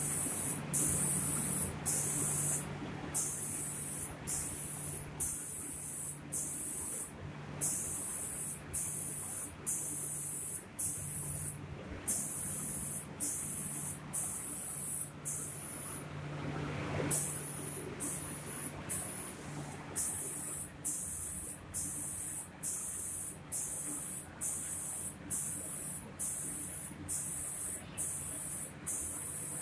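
Automatic paint spraying machine's spray guns hissing in short, regular bursts about every two-thirds of a second as they switch on and off, over a steady low machine hum.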